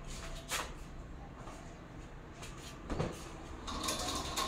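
Laundry being hung on an overhead drying rail: a light click about half a second in, a knock at about three seconds, then a scraping slide near the end as a hanger is pushed along the rail.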